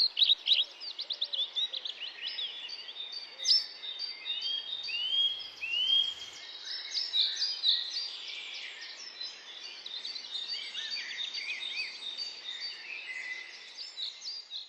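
Several songbirds singing at once: quick chirps and trills near the start, a few arched whistled notes a little before the middle, then a dense mixed chorus of chirps.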